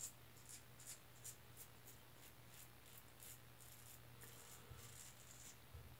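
Faint scratching of a Rockwell 6C safety razor's blade cutting through lather and stubble, in short quick strokes about three a second, over a faint steady hum.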